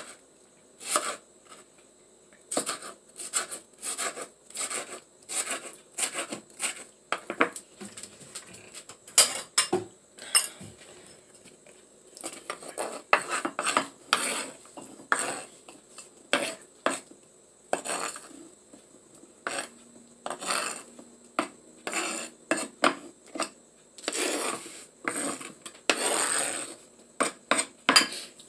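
Kitchen knife chopping tomatoes and green onions on a wooden cutting board: irregular sharp knocks of the blade on the board, with a pause in the first half. Near the end there are longer scraping strokes as the blade sweeps the chopped pieces across the board.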